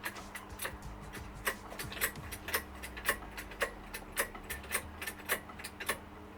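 Socket ratchet clicking in quick uneven runs as exhaust bolts are worked, stopping near the end.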